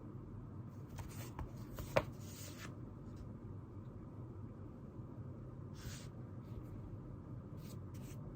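Quiet desk-work sounds: short scratching and rustling strokes of paper and pen, with a sharp click about two seconds in and a few small ticks near the end, over a steady low room hum.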